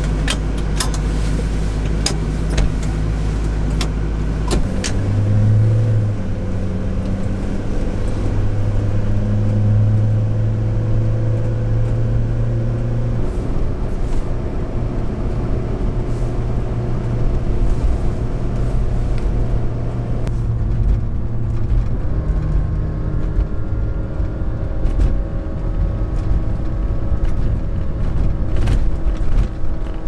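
Light truck driving: steady engine and road noise, the engine note shifting to a new pitch several times, with scattered light clicks.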